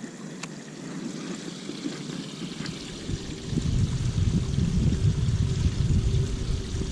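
Water of a small rain-swollen creek running and trickling. About halfway through, a louder low rumble sets in and holds.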